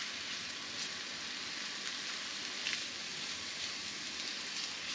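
Sliced shallots frying in oil in a frying pan, a steady sizzle with faint scattered crackles.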